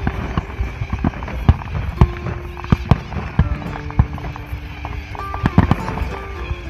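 Aerial fireworks display going off: a dense, irregular run of bangs and crackles over a low rumble, with music playing steady held notes alongside.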